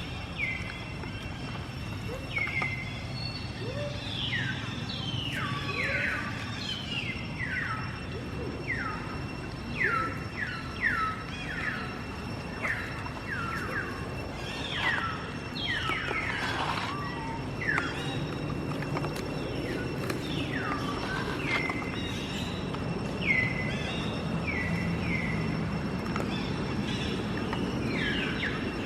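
Many short, high-pitched squealing calls, each sliding steeply down in pitch. They come one after another, a few a second at times, over a steady background hiss and hum.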